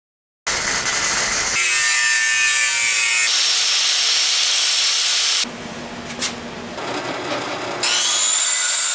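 An angle grinder in a cut-off stand cutting a piece of metal held in its vise, its whine falling as it bites. After a quieter stretch, a Ryobi circular saw spins up with a rising whine, about eight seconds in, and cuts a board.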